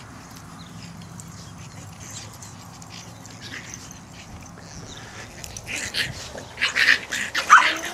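Boston terrier puppies playing and giving a cluster of short, high-pitched cries in the last two seconds; before that, only faint background.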